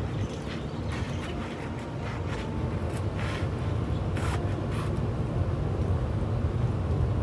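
Short bursts of hose water spraying against the side of a pickup truck, over a steady low rumble.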